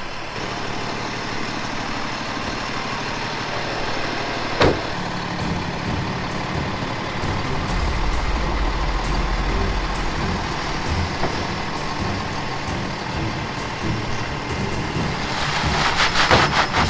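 Medium-duty diesel truck's engine pulling a loaded boat trailer up a launch ramp and out of the water, working harder after a sharp click about five seconds in. A rapid clattering builds near the end.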